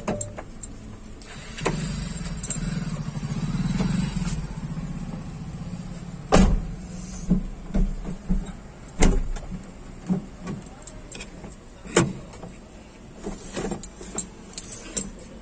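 A car at a fuel pump: a steady low motor hum starting about two seconds in and lasting a few seconds, then a run of sharp knocks and thumps on the car body.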